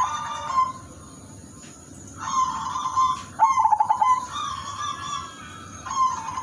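Zebra dove (perkutut) cooing in its rhythmic song. One phrase ends at the start and a pause of over a second follows. Then comes a longer phrase with a quick stuttering run of notes in the middle, and another phrase starts near the end.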